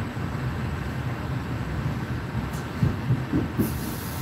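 Moving passenger train heard from inside the carriage: a steady low rumble of wheels on rails, with a few knocks of the wheels over the track about three seconds in and a high hiss joining just before the end.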